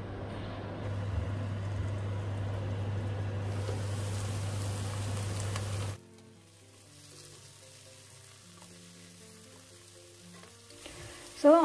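Chopped onions frying in oil in a covered nonstick pot: a steady sizzle over a low hum. About six seconds in it cuts off abruptly, leaving only faint background music.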